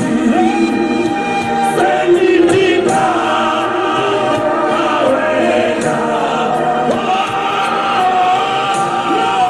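Congregation singing a gospel hymn together, many voices in chorus over a steady beat.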